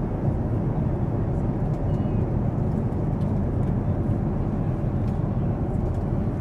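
Steady low cabin noise of a jet airliner in cruise, the even sound of engines and airflow, with a few faint clicks.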